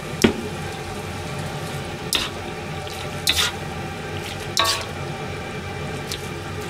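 A pot of chicken and napa cabbage cream stew on the heat being stirred, with about five sharp clinks of a utensil against the pot; the loudest comes about a quarter second in, and one near the middle rings briefly.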